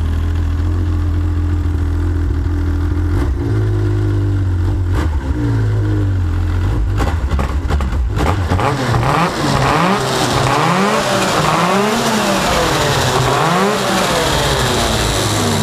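Yamaha FX Nytro XTX snowmobile's four-stroke triple engine idling steadily, then blipped a couple of times. From about halfway through it is revved again and again, the pitch climbing and dropping roughly once a second.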